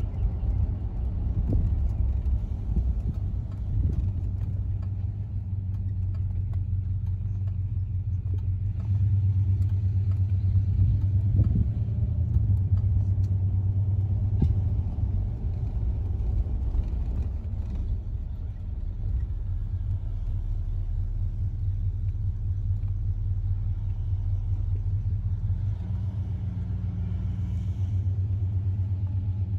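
Cabin sound of a 1966 Cadillac Fleetwood Brougham on the move: its 429 V8 and road noise make a steady low rumble. It grows a little louder about nine seconds in and eases back later.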